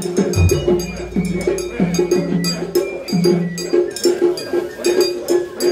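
Japanese festival music: drums and clanging metal percussion in a quick, even beat of about three or four strokes a second, with higher melodic notes over it. A deep low boom comes about half a second in and dies away over about three seconds.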